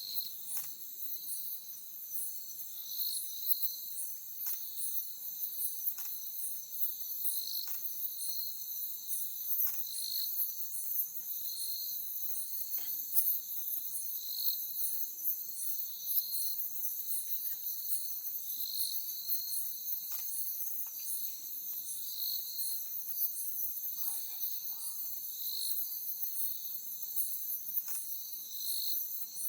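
Night chorus of crickets and other insects: a steady high-pitched trill overlaid with chirps that pulse again and again, about one each second.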